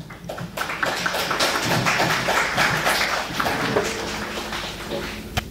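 Audience applauding: many hands clapping at once, thinning a little near the end.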